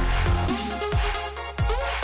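Electronic background music with a deep bass line, sliding synth notes and a steady drum beat.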